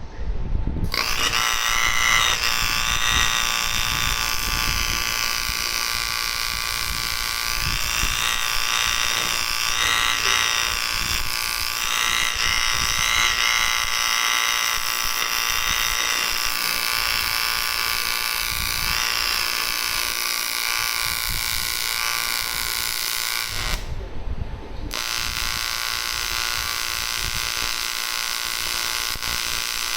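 AC TIG welding arc on aluminium, a steady electric buzz with a bright edge. It strikes about a second in, breaks off for about a second some six seconds before the end, then strikes again.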